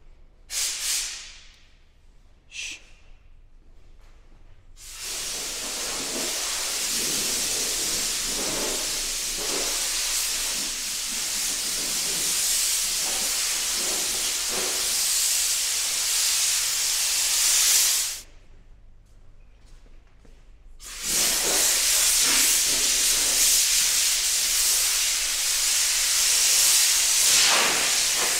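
Compressed-air spray gun hissing as it sprays primer-surfacer onto a car body: two short bursts, then long steady spraying that stops for about three seconds two-thirds of the way through and starts again.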